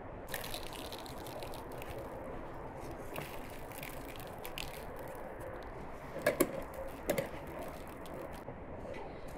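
Metal kebab skewers threaded with meat and pinecones clinking against each other and the plate as they are handled: a few sharp clinks, loudest about six and seven seconds in, over a steady low background hum.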